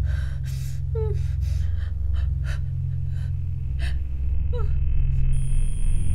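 A woman's quick, shaky, frightened gasping breaths, with two short whimpers that fall in pitch, over a low steady hum. A thin high tone comes in near the end.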